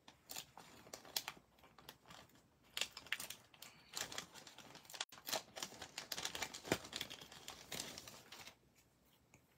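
Clear plastic packaging bag of foam adhesive strips crinkling and crackling in irregular bursts as the strip sheet is worked out of it, stopping shortly before the end.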